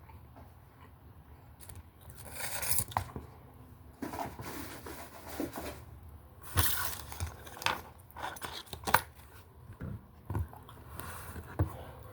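Close-up eating and food-handling sounds: scattered clicks, scrapes and rustles, as of food and a plate or container being handled, starting about two seconds in.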